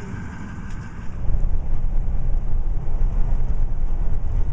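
A vehicle driving on a dirt track, heard from inside the cabin: a steady low rumble of engine and tyres on the rough surface, which comes in loud about a second in.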